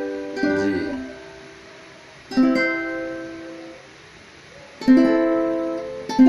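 Ukulele strummed on a G chord, one strum about every two seconds, each chord left to ring and fade before the next.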